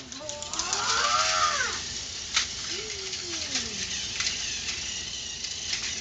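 A child's voice making a long wordless sound that rises and then falls, followed by a shorter falling one, over a few sharp plastic clicks from toy trains being handled on the track.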